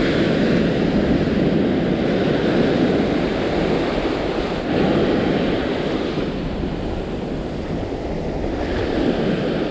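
Ocean surf washing up a sandy beach: small waves breaking and foam rushing over the sand, the noise swelling and easing as each wave comes in, with wind buffeting the microphone.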